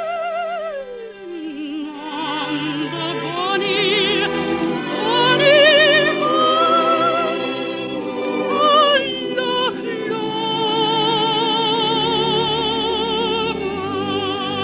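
Music: operatic singing with a wide vibrato, long held notes that change pitch from phrase to phrase, from a radio operetta's musical number.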